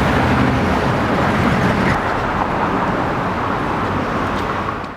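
Street traffic noise: a steady wash of passing cars that cuts off suddenly at the end.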